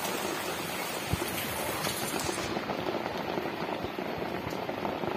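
Heavy rain pouring steadily, a dense hiss of countless drops striking leaves, walls and roofs, with one louder knock about a second in.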